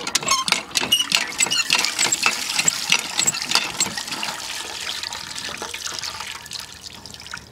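Water running from an outdoor tap over a whole raw chicken as it is washed and turned by hand, splashing onto the ground and into a steel bowl below. It is a steady splashing rush with many small splashes, a little quieter in the last couple of seconds.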